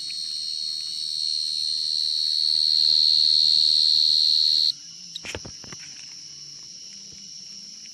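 A field cricket singing a steady, high, unbroken song close by, growing louder, then falling silent abruptly about two-thirds of the way in, as crickets do when disturbed. A few soft knocks and rustles follow as the burrow is handled, while other crickets keep singing more faintly.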